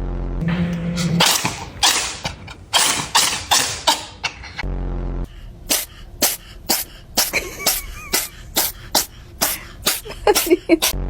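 Cats sneezing over and over: a few longer sneezes at first, then a quick run of short sharp sneezes, about two a second.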